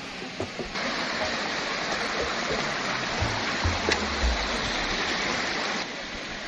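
Rushing water, heard as a steady even hiss that cuts in abruptly about a second in and cuts off near the end, with faint music beneath.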